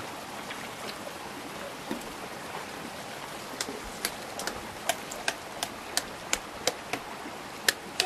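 Running water of a small stream, with sharp wooden knocks starting a few seconds in, about three a second: a wooden mallet tapping bamboo stakes into the streambed.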